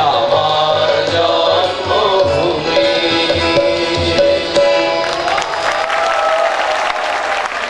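A group of voices singing a Bengali song in chorus, accompanied by tabla and harmonium. About five seconds in, the song ends on a held note and applause begins to rise.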